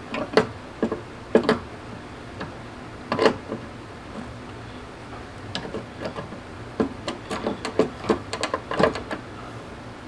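Steel pliers clicking and scraping on a thin sheet-metal mounting tab of a window air conditioner's case as the tab is twisted upright; scattered sharp clicks, with a quicker run of them towards the end.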